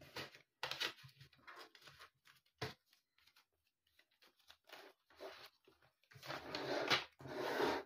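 Paper banknotes and a clear plastic zip pouch rustling and crinkling as the notes are slid into the pouch, in scattered short rustles with a light tap about two and a half seconds in and a louder, longer crinkle near the end.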